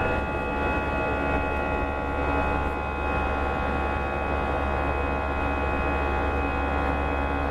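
Airbus A320's CFM56 turbofan engines running steadily after takeoff: a steady low hum with several high whining tones.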